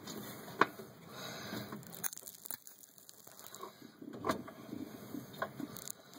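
Fireplace damper rod and bracket being handled: scattered sharp clicks and knocks over low rustling, the loudest about half a second in and a few more around four to six seconds in.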